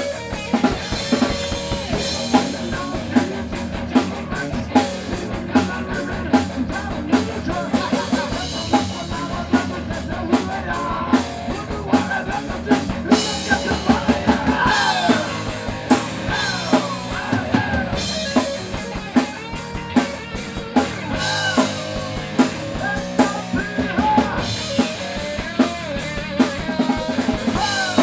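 Live rock band playing: a drum kit keeps a hard, regular beat of bass drum and snare under electric guitar.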